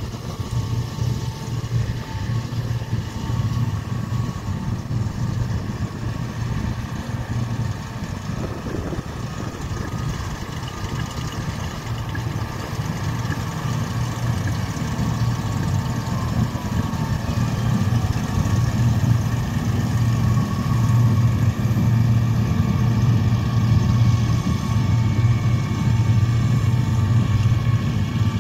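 New Holland T7.290 tractor's diesel engine running steadily as it pulls a hay merger through the field, growing louder in the second half as it comes closer.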